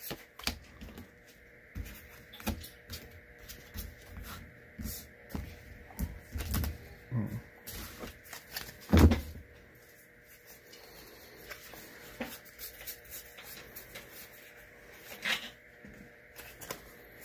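Magic: The Gathering trading cards being handled and flipped through one by one: irregular soft clicks and taps, with one louder thump about nine seconds in.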